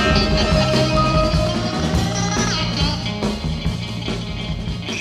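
Psychedelic rock instrumental music with held notes and a sliding pitch a little over two seconds in, slowly growing quieter as the track fades out.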